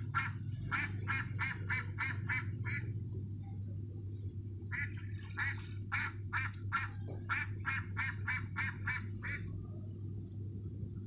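Electronic duck-quack sound chip in a children's sound board book, playing a rapid string of quacks, about three a second. One run stops about three seconds in, and after a pause of about two seconds a second run plays for about four and a half seconds. A steady low hum lies underneath.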